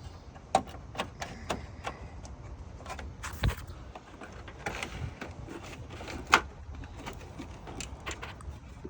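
Scattered clicks, taps and light knocks of a hood release cable being worked loose and pulled through under the hood, with one sharper knock a little past halfway.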